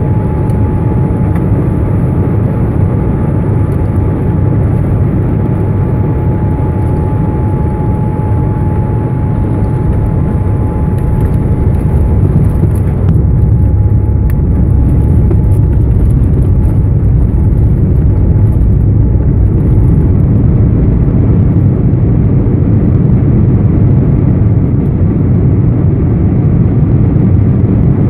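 Airplane cabin noise during landing: a loud, steady low rumble with a thin steady whine above it. The whine fades out about halfway through as the rumble grows slightly louder.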